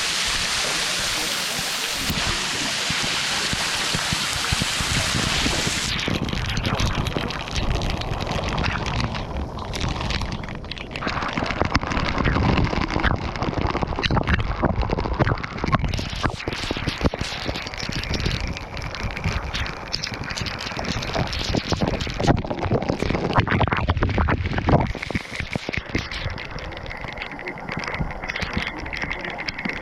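Steady rush of falling water from a waterfall. About six seconds in it turns choppy, with wind buffeting the microphone and rustling handling noise over the water.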